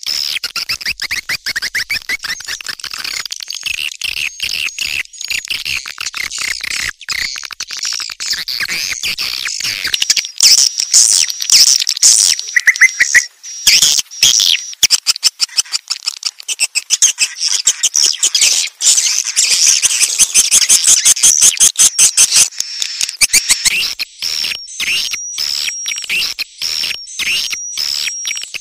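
Edited, mixed recording of edible-nest swiftlets calling: dense, rapid high-pitched twittering and clicking chirps, with a run of evenly repeated short chirps near the end. It is a swiftlet lure call ('sedotan magrib'), played at a bird house at dusk to draw swiftlets in.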